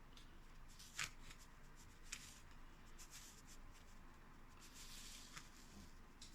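Faint handling of a paper seed packet: a light rustle and three small clicks, the first about a second in, one near the middle and one near the end, with the room otherwise near silent.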